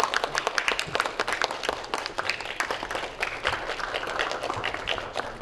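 An audience applauding with many overlapping hand claps, thinning out near the end.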